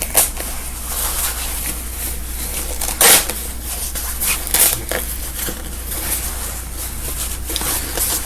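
Scissors cutting through gown fabric, with the rustle of the fabric being handled and a few sharp clicks, the loudest about three seconds in.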